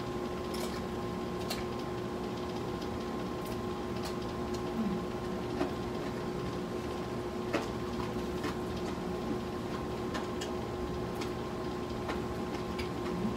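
Eating sounds of crispy fried chicken being torn apart and chewed by hand, with scattered irregular clicks and smacks. Under them runs a steady mechanical hum with a few held tones.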